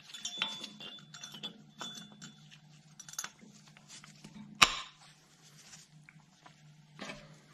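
Small clicks and clinks of a brake pad and its spring clip being worked into a rear disc-brake caliper, with one sharp snap about halfway through.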